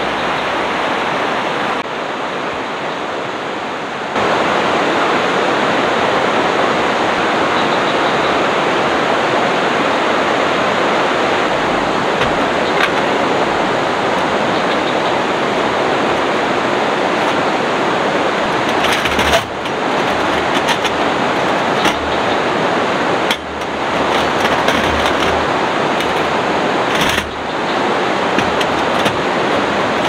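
Steady rush of river water running over rocks in rapids. From about two-thirds of the way in, light clicks and clinks of metal stove parts being handled are heard over it.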